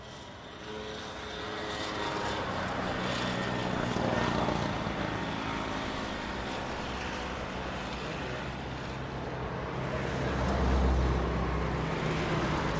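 City street traffic dominated by motor scooter engines running and passing, a continuous mix of engine drones over a steady noise of traffic, fading in over the first couple of seconds. A heavier, lower engine rumble swells about ten seconds in.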